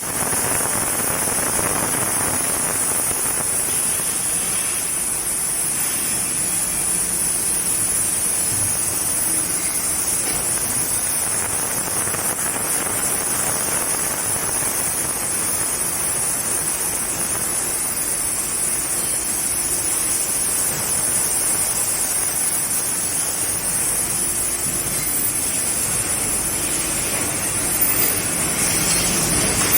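Industrial ultrasonic washing machine running: a steady water-like hiss with a strong high-pitched hiss over it, unchanging throughout.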